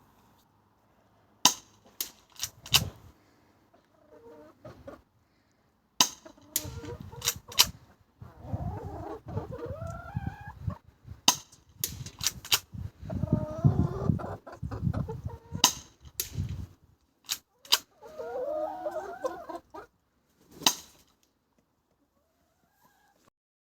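Spring airsoft pistol (ASG CZ-75D Compact) firing a series of sharp single shots, each cocked by hand, irregularly spaced with pauses between groups. Chickens cluck in the background in three spells.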